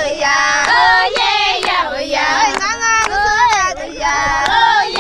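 A group of high voices singing a goodbye song together, women's and children's, with sharp hand claps now and then.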